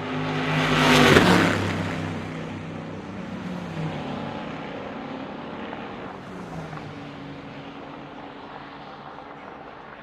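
Race car passing close at speed, loudest about a second in, its engine note dropping in pitch as it pulls away. Engine sound from further cars on the circuit follows, rising and falling in pitch and fading out.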